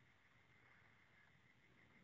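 Near silence: a faint, steady background hiss with no distinct sounds.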